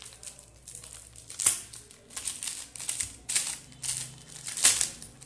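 Gift wrapping paper crinkling and rustling as a small wrapped package is picked at and peeled open by hand, in irregular bursts, the loudest about a second and a half in and again near the end.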